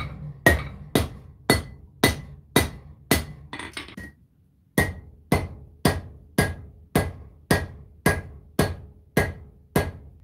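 Hand hammer striking red-hot high-carbon steel on an anvil, about two blows a second, each with a short metallic ring, with a brief pause a little before the middle: forging out the handle of a knife.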